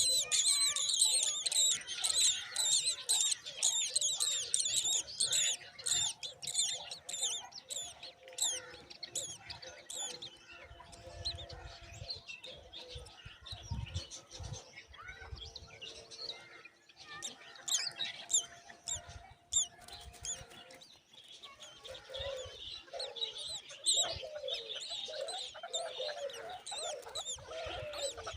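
Myna chicks calling in a chorus of rapid, high chirps, dense at first, thinning out in the middle and picking up again near the end, when lower calls join in.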